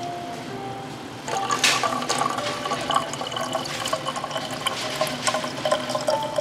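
Water pouring from a drinking-water dispenser's spout into a plastic bottle, splashing and gurgling as the bottle fills. It grows louder about a second in.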